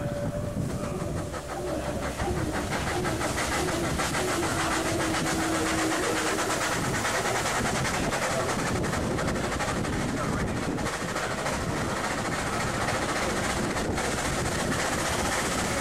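A 1911 Stanley Model 85 30 hp steam car running under load up a hill, heard from on board: a fast clatter from its steam engine with a hiss of steam and rushing air, growing louder about two seconds in.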